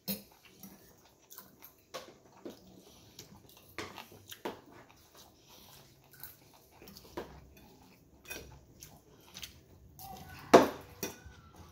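Steak knife and fork scraping and clicking against a plate while a steak is cut, in short separate strokes. Near the end comes a loud bite into a forkful of iceberg lettuce and tomato.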